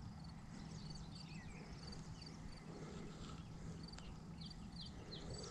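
Faint birdsong: several birds chirping in short, high, repeated notes with a few falling whistles, over a low steady hum, and a single small click about four seconds in.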